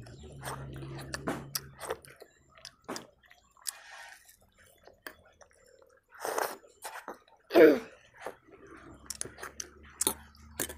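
Chewing and mouth smacking of people eating puris fast, with many light clicks. A brief loud vocal sound breaks in a little past halfway.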